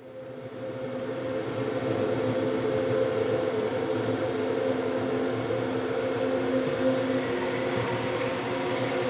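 A steady drone of several held low tones under a hissy wash, swelling up out of silence over the first two seconds and then holding level.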